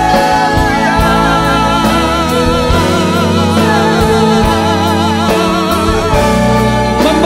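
Live worship band playing, with singers holding long notes with vibrato over electric guitars and keyboards and a steady beat.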